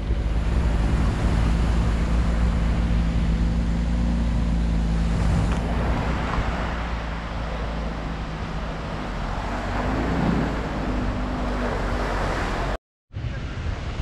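A car engine idling steadily over wind and sea surf. The engine note fades after about nine seconds. After a sudden cut near the end only wind and surf remain.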